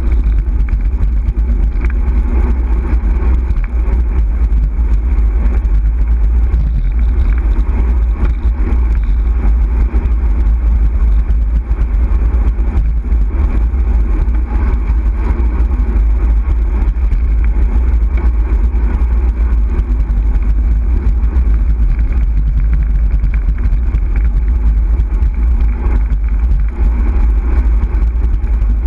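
Steady rumble of wind buffeting the microphone of a camera on a moving bicycle, mixed with road and tyre noise.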